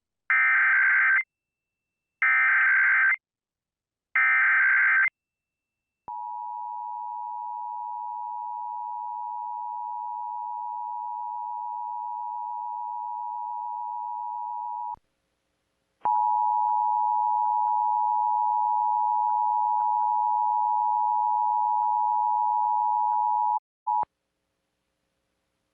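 Emergency Alert System tones: three short bursts of SAME digital header data, then the steady two-tone EAS attention signal, held for about nine seconds, breaking off for about a second, and resuming louder for about seven more before cutting off. They open a statewide required monthly test.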